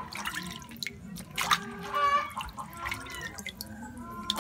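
Water splashing and dripping in a plastic basin as a hand moves and pulls apart soaked, thawing chicken pieces, with a few sharper splashes about a second and a half and two seconds in.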